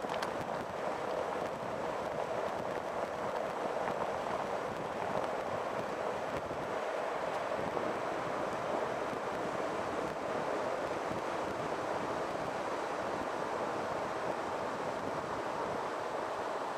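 Steady rushing wind noise on the camera microphone, mixed with the wash of surf.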